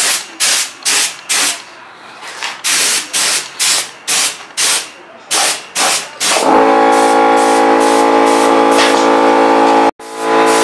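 Gravity-feed spray gun hissing in short bursts, about two a second, as primer is sprayed. About six and a half seconds in, the air compressor's motor starts and runs with a steady hum under it.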